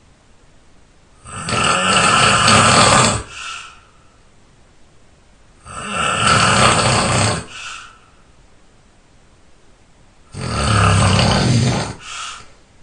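A sleeping person snoring while ill: three loud, rasping snores about four and a half seconds apart, each lasting about two seconds and followed by a brief, fainter breath sound.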